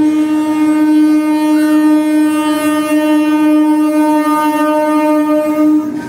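A long, loud, steady horn blast on one pitch, held unbroken and cutting off near the end.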